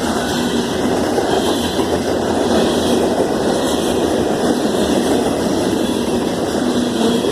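Freight cars of a manifest train rolling past, a steady noise of steel wheels running on the rails.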